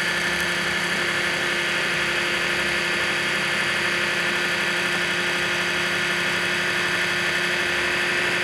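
Electric food processor running at a steady speed, blending pesto sauce of basil, garlic, walnuts, cheese and olive oil; an even motor whir that holds one pitch throughout.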